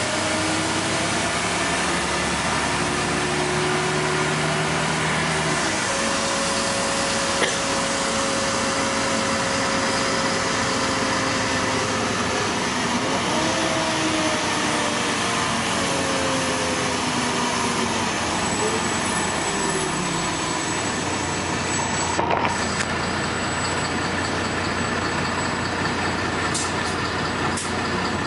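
Cabin noise of a LiAZ 5292.22 city bus under way: the diesel engine and drivetrain hum, holding steady, then falling and rising in pitch as the bus slows and speeds up. A few short clicks and knocks come in the last third.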